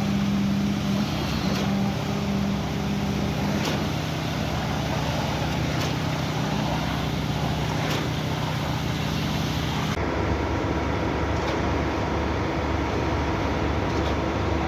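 Heavy diesel truck engine running steadily at a concrete pour, with a sharp knock every couple of seconds. About two-thirds through the sound changes abruptly to a different steady engine hum.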